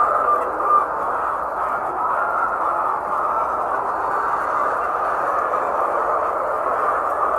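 A large flock of laying hens clucking and calling together in a steady, continuous din.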